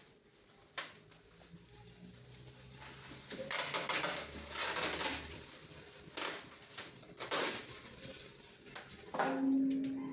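Rustling and scraping of packaging as a boxed speaker is handled and unpacked, in several bursts, with a sharp click about a second in.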